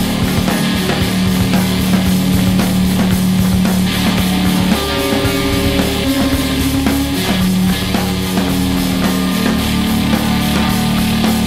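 Recorded rock track played by a band: guitars and drums over long held low notes that shift pitch a couple of times about halfway through.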